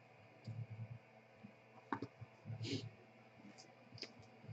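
Faint handling of trading cards on a table: a few light clicks and taps, and a brief rustle about halfway through.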